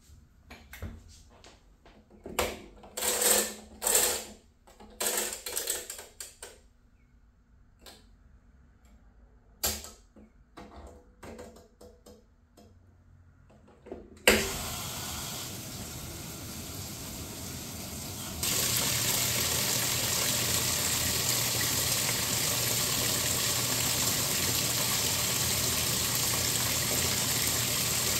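Scattered knocks and clicks of a washing machine being set, then a sharp click about halfway through and water starts rushing into the tub as it fills. The rushing steps up louder a few seconds later and then holds steady, with a low hum under it.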